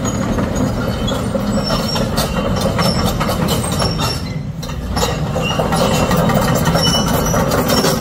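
Steady mechanical rumble with clattering, a heavy-machinery sound effect for a crawler excavator digging and lifting earth.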